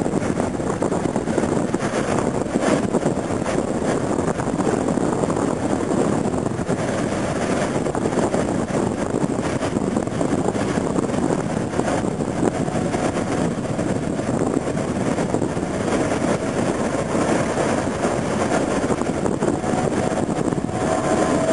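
Ocean surf breaking and washing up the shore: a steady rushing noise that stays even throughout.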